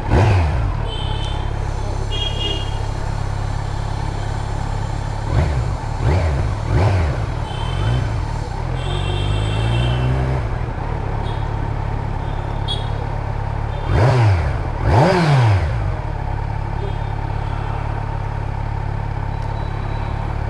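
Kawasaki Z900 inline-four engine idling steadily, blipped with short throttle revs several times, two of them close together a little past the middle. It is being run for the clattering at idle that the owner suspects is an engine knock.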